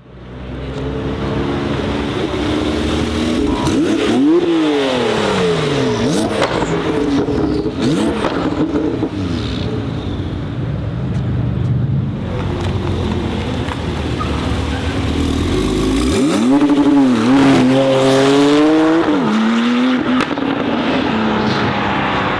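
Porsche 991 Turbo S's twin-turbo flat-six, breathing through an Akrapovic exhaust, revved repeatedly, the pitch climbing and falling with each rev. There is one cluster of revs about four to eight seconds in and another about sixteen to twenty seconds in.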